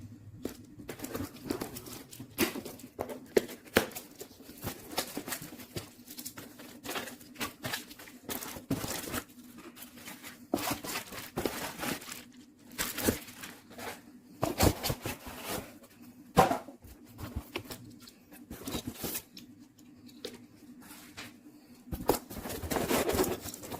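Handling noises: crinkling and tearing sounds with scattered clicks and knocks, irregular throughout, over a faint steady hum; the handling gets busier near the end.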